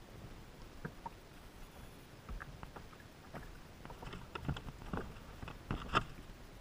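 Scattered light clicks and knocks of fishing gear being handled on a kayak, with a cluster of louder knocks about four and a half to six seconds in.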